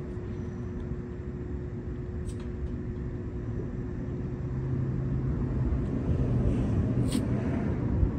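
Steady low rumble with a constant hum, growing louder about halfway through and easing near the end, with two faint clicks.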